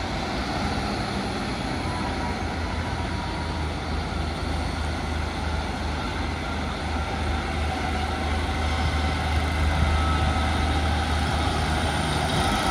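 Diesel train engine running with a steady low hum, growing gradually louder toward the end.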